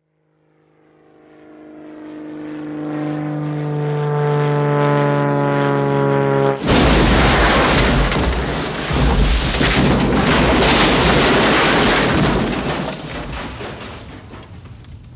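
Plane crash sound effect: an airplane engine drone swells steadily louder, then about six and a half seconds in a sudden loud crash and explosion cuts it off. The explosion's noise stays loud for several seconds and then slowly dies away.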